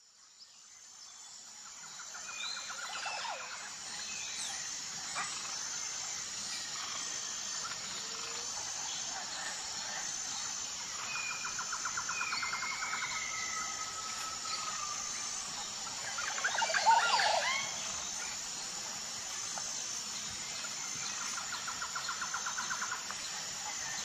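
Outdoor bird ambience fading in over the first couple of seconds: small birds chirping, a steady high-pitched pulsing underneath, and a rapid trill that comes three times. About two-thirds of the way through, a louder honking call from a Canada goose stands out as the loudest sound.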